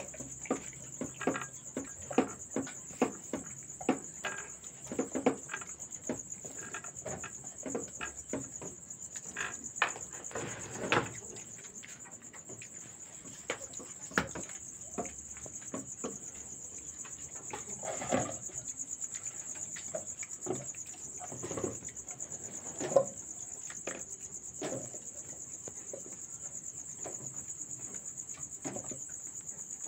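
Steady high-pitched chirring of night crickets, with irregular clicks and knocks from papaya pieces being handled in a metal bowl and set into a wooden cage tray; the loudest knock comes about 23 seconds in.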